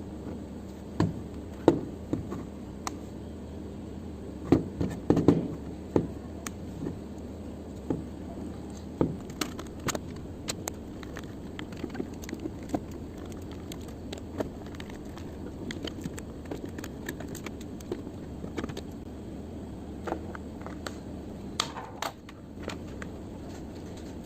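Hard small objects being handled: irregular sharp clicks and knocks, with a cluster about five seconds in and another near the end, over a steady low hum.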